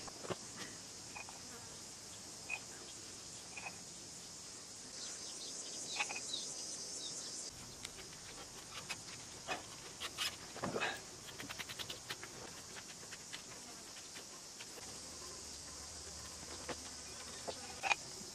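Faint steady high chirring of insects, with scattered short crackles and clicks of tape being wrapped around the pipe, most of them about halfway through.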